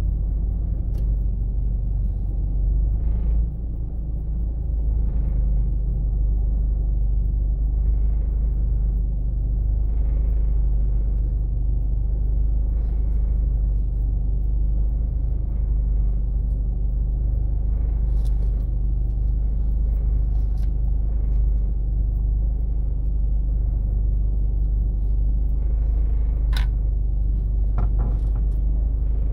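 Car driving along a city street: a steady low rumble of engine and road noise. A few faint ticks come and go, and there is one short sharp click near the end.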